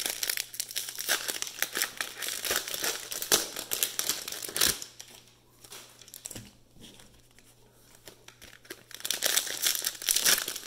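Cellophane wrappers of trading-card cello packs being torn open and crinkled by hand: dense crinkling and tearing at first, a quieter stretch about halfway through, then crinkling again near the end.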